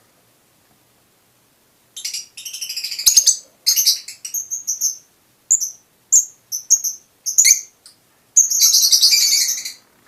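Fischer's lovebirds calling: after about two seconds of quiet, shrill high chirps and rapid chattering runs, with a longer burst of chatter near the end.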